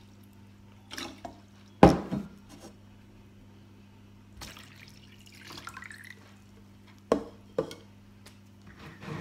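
Water dripping into a plastic mixing bowl just after a pour, with a few sharp knocks and clicks as the bowl and jug are handled, the loudest knock about two seconds in.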